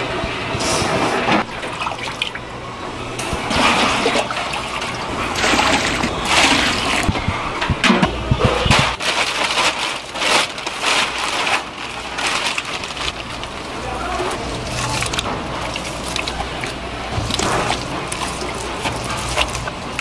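Kitchen work sounds: broth sloshing and splashing in a large aluminium stockpot, a plastic bag rustling partway through, and chunks of raw meat splashing into the broth near the end.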